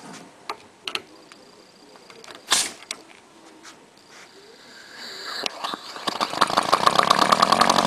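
Clicks and knocks of an air line being hooked up, a short hiss of compressed air about five seconds in, then the air motor of a Powerwise ink pump starting and running with a fast, even chatter that grows louder toward the end. The motor is freshly reassembled and its cover screws are only snugged, not yet fully tightened.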